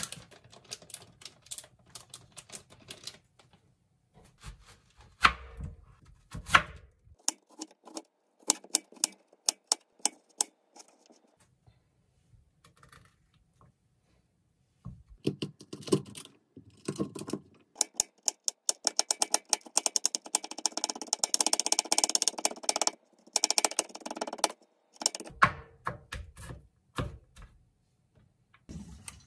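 Kitchen knife chopping vegetables on a plastic cutting board, in scattered single strokes. Past the middle comes a long run of fast, close-spaced strokes as garlic is minced.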